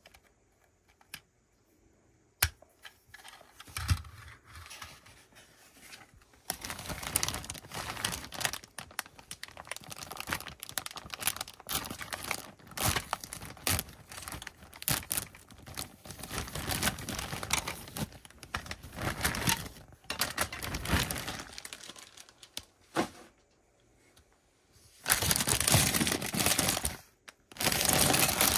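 A plastic bag of Lego pieces crinkling as it is handled, with many small clicks of pieces. A few sharp clicks come first, and there are two louder stretches of crinkling near the end.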